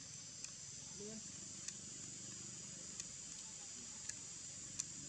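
Faint, steady high-pitched drone of insects, with about five short sharp ticks scattered through it.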